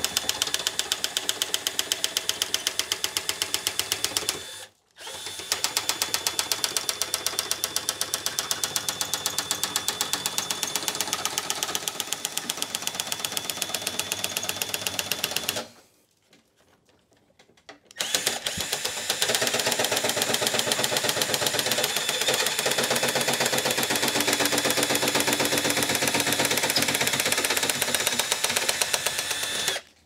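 Drill-driven nibbler attachment punching its way through sheet metal in a rapid, even clatter, with the low-speed drill's motor running under it. It pauses briefly about five seconds in and for about two seconds just past the middle, then runs on.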